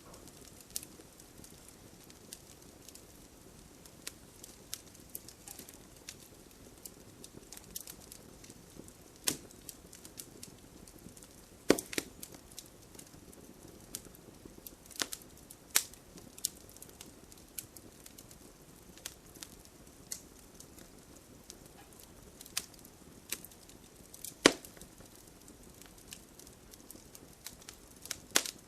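Wood fire crackling in a fireplace: irregular sharp pops and snaps over a soft steady hiss, with a few louder pops now and then.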